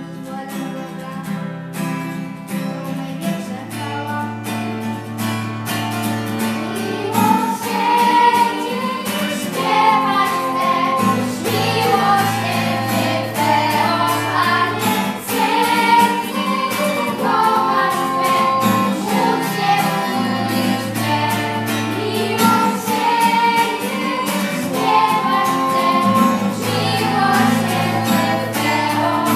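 A small group of girls singing a religious song together over a musical accompaniment of sustained low chords that change every few seconds.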